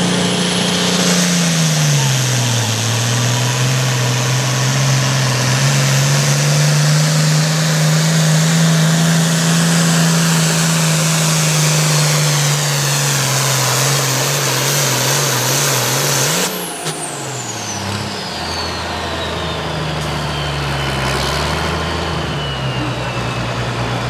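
Turbocharged diesel engine of an International 706 pulling tractor running flat out under load on the sled, with a high turbo whistle above the engine note. The note sags in pitch near the start as the engine takes the load, then holds steady. About two-thirds of the way through the throttle is cut: the engine drops away and the Borg Warner S300 turbo's whine falls steadily in pitch as it spools down.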